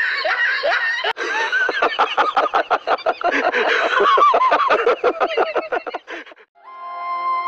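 Two men laughing loudly and heartily together in a fast run of ha-ha bursts that stops about six seconds in. A few held notes of music begin just before the end.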